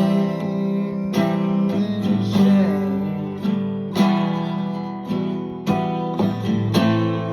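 Music: acoustic guitar strumming chords, a new chord struck about every second.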